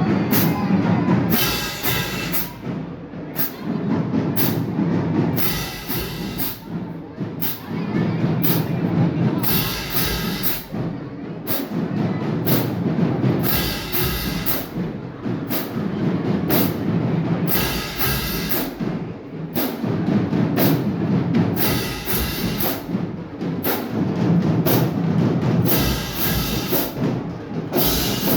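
Marching band playing: drums and percussion beat a steady, driving rhythm, with pitched horn phrases coming in about every four seconds.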